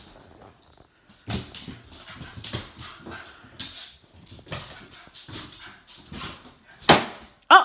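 A puppy playing with a rubber party balloon on a wooden floor: scattered rustles, knocks and squeaks of the balloon against her mouth and the floor, then one loud sharp bang about seven seconds in as the balloon bursts.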